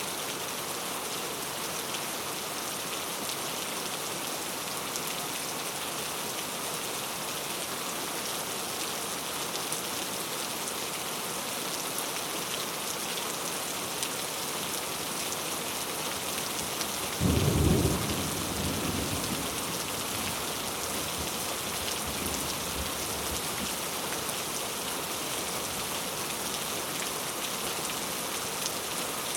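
Steady rain hissing, with a sudden clap of thunder a little past halfway through that rumbles away over two or three seconds.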